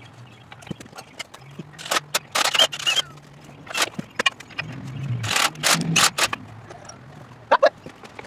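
Irregular metal clanks and knocks from hand tools and parts being handled at a skid steer's hydraulic pump, in two clusters of several sharp knocks with lighter clicks between.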